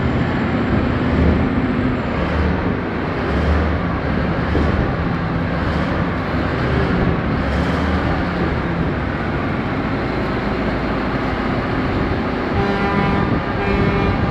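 Caterpillar 793 mining haul truck's large diesel engine running under way, a loud steady rumble with a rhythmic pulsing low note. Near the end a pitched tone sounds briefly over it.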